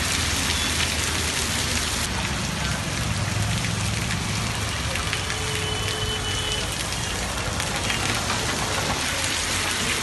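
Heavy rain pouring down, a steady dense hiss of drops hitting surfaces.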